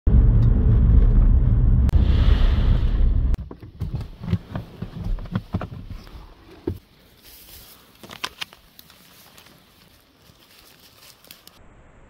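Car driving on a gravel road, heard from inside the cabin as a loud low rumble that cuts off suddenly about three seconds in. Then a run of knocks and rustles as the car door opens and someone gets out onto grass, fading to faint scattered clicks.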